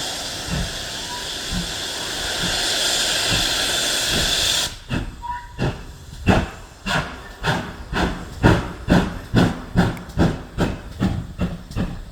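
Steam locomotive pulling away from a standstill. A loud steady hiss of steam stops abruptly about four and a half seconds in, leaving the exhaust chuffing in an even beat that quickens as the train gathers speed.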